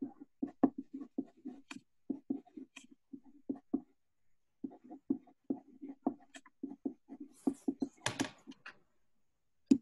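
Handwriting on paper: a run of short, quick scratching strokes with a brief pause near the middle, and one louder scrape about eight seconds in.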